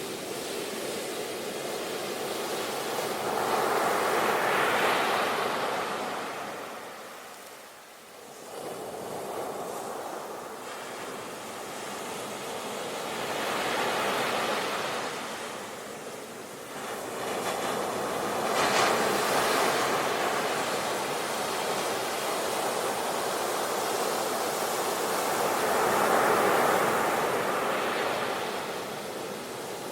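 Sea waves breaking and washing onto the shore, the surf swelling and ebbing in repeated surges, with a brief lull about a quarter of the way in.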